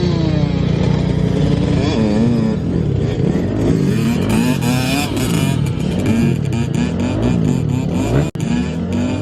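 Dirt bike engines revving up and backing off again and again, more than one bike at once, their pitches rising and falling across each other. The sound drops out briefly about eight seconds in.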